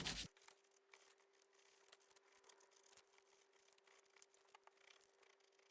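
Near silence: the sound drops out a moment in, leaving only a very faint steady hum.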